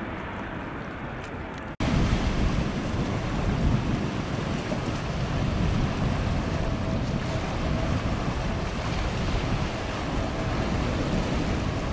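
Steady distant airliner jet noise that cuts off abruptly about two seconds in, giving way to louder wind rumbling on the microphone with waves washing along a rocky shore.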